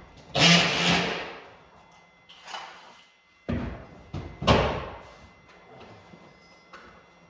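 Sheetrock being hung: a burst of about a second from a drywall screw gun driving a screw into the sheet, with a low hum, then two sharp knocks about a second apart as the panel is fastened against the framing. The sounds echo in the bare drywalled room.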